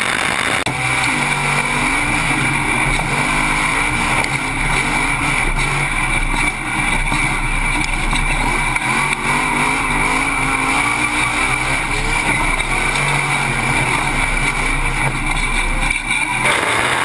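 Short-course off-road race truck engine running on a dirt track at night racing pace, its revs rising and falling in long sweeps, over a steady high whine and a rush of wind on the mounted action camera. The sound shifts abruptly just after the start and again near the end.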